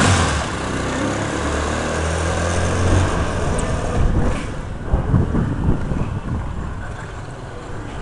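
A 125cc ATV engine running as the quad rides away; its steady drone fades after about three seconds, followed by a few short low thumps.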